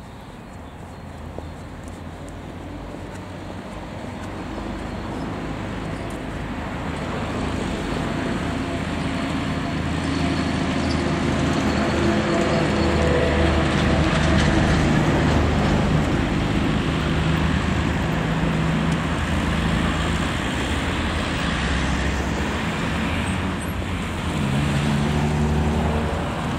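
Road traffic: a motor vehicle's engine hum and road noise, growing steadily louder over the first dozen seconds and then holding steady.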